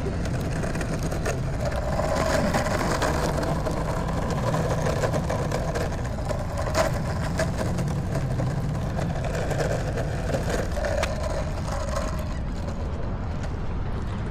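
Longboard wheels rolling steadily over rough asphalt, a continuous rumble with a sharp click about seven seconds in and a few lighter clicks around eleven seconds as the wheels cross cracks or seams. Near the end the rolling noise thins out as the board slows and is picked up.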